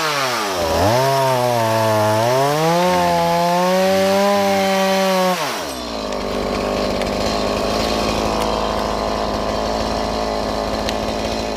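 Chainsaw running at high revs as it cuts a tree limb, its pitch sagging and recovering under the load, then dropping to a steady idle about five and a half seconds in.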